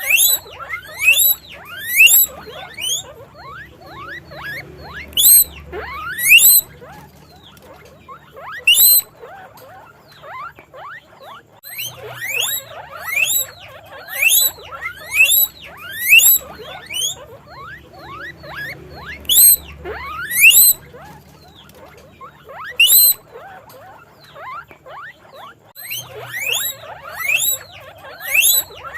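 Guinea pig wheeking: loud, high squeals that rise sharply in pitch, repeated in quick runs of several calls with short pauses between the runs.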